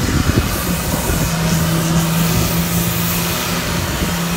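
Electric pressure washer running with a steady hum that firms up about a second in, with wind buffeting the microphone.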